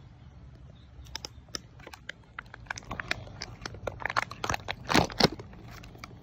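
Plastic toy packaging crinkling and crackling as it is handled and pulled open by hand. The crackles are sparse at first, then come thicker and louder, peaking about five seconds in.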